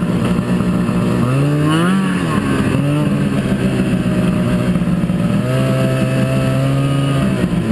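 Snowmobile engine running and being revved: its pitch climbs sharply about a second in and falls back a second later, rises again a little past the middle, and drops near the end.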